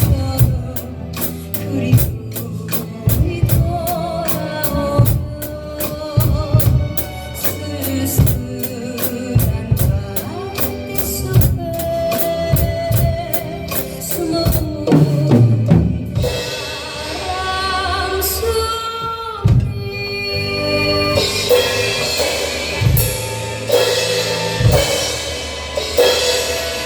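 Acoustic drum kit played along to a backing track: a steady beat of kick, snare and hi-hat with the song's melody over it, thinning about two-thirds in to sparser hits under long held melody notes.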